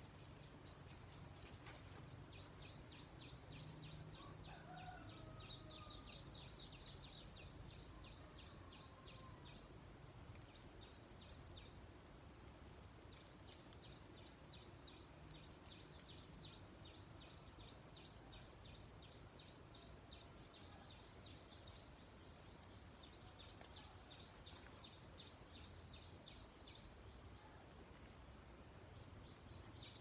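Faint outdoor ambience with a small bird chirping in long runs of quick, high chirps, several a second, with a faster, louder run a few seconds in. A couple of soft, lower whistled glides sound near the start.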